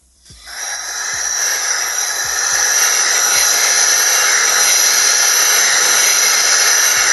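Compressed shop air hissing loudly through an opened 1960s–70s diaphragm gas meter that is being driven backwards, building up over the first couple of seconds and then holding steady. The meter's valves are floating, popping up off their seats because they are designed to be pushed down, not up.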